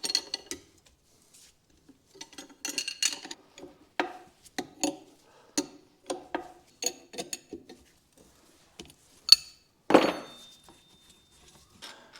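Metal tools and parts clinking and clanking irregularly while an old bushing is worked out of a steel trailing arm. Near the end there is a sharp click, then the loudest clank, which rings briefly.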